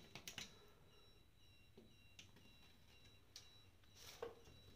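Near silence with a faint steady high whine, broken by a few faint ticks and light scrapes, one a little louder about four seconds in: a pencil marking the wall around a metal air-conditioner mounting plate held against it.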